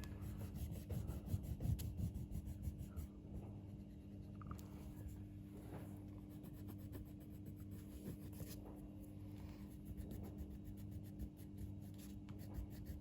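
Faint, irregular scratching of colouring strokes rubbed back and forth on paper, over a steady low hum.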